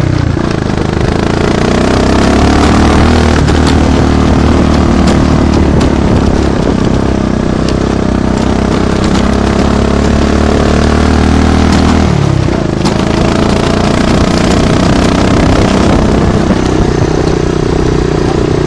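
Honda ATC250ES Big Red three-wheeler's single-cylinder four-stroke engine running under load while towing a chained bundle of logs. The revs drop about twelve seconds in and pick up again a few seconds later, with scattered clatter throughout.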